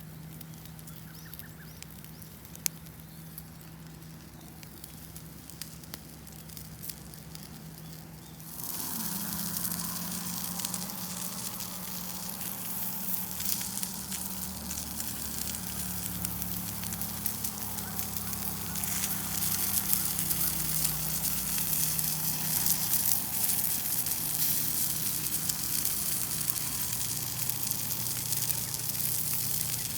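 Wood campfire crackling with scattered pops. About eight seconds in, a loud sizzle starts suddenly as pork belly rolls start cooking over the fire, and it keeps going to the end.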